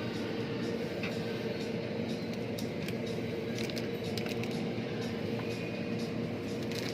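Steady low hum with a faint constant tone running through it, and scattered light clicks and taps.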